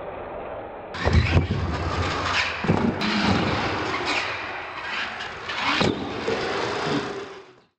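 Radio-controlled monster truck running on a concrete floor, its motor and tyres going continuously, with several sharp knocks and clatters as it bounces, lands a jump and tumbles.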